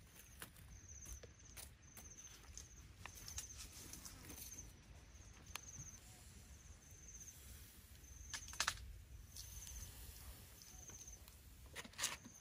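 Faint outdoor ambience with a short, high chirp repeating about once a second, and a few sharp clicks and knocks as the frogs are handled on the wire grill, the loudest about eight and a half seconds in and near the end.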